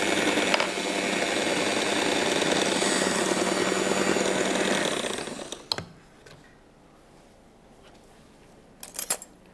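Electric hand mixer running steadily, its beaters whipping ghee, sugar and yogurt in a glass bowl, then switched off about five seconds in and winding down. A few sharp clinks near the end.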